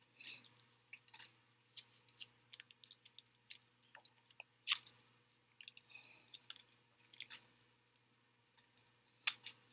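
Faint, scattered small clicks and rustles of hands turning a PVC pipe fitting and wrapping plumber's thread-seal tape onto its threads, with a sharper tick about four and a half seconds in and two more near the end.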